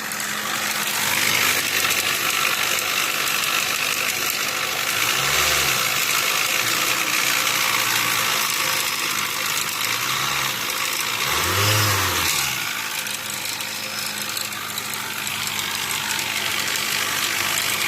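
Nissan Altima 2.4-litre four-cylinder engine running with an unusual mechanical noise from the top end, which the mechanic suspects could be the timing chain or the camshafts. There are three brief swells, at about five, ten and twelve seconds in.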